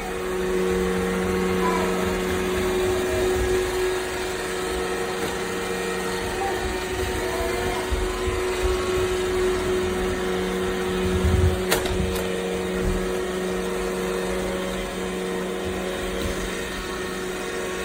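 iRobot Roomba i7 robot vacuum running steadily, a constant motor hum with a steady whine and one sharp click past the middle.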